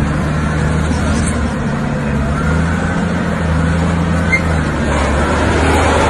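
Heavy wheel loader's diesel engine running steadily under load, a deep constant drone.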